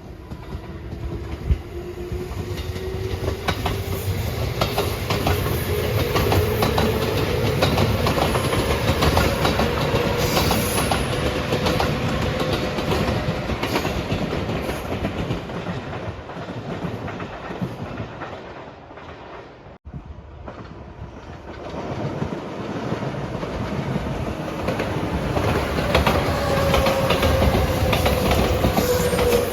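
Train passing close by, its wheels clicking over the rail joints, with a tone that slowly rises in pitch through the first half. It cuts off suddenly about twenty seconds in, and another loud train passage follows.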